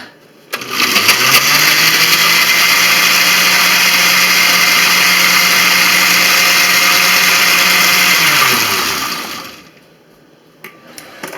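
Kitchen blender motor blending a thick mixture with a chicken nugget in it: it spins up about half a second in, runs steadily and loudly, then winds down with a falling tone and stops about nine seconds in.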